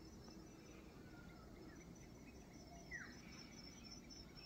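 Faint rural ambience: a bird gives one short falling whistle about three seconds in, over quiet, steadily repeating high-pitched insect chirping.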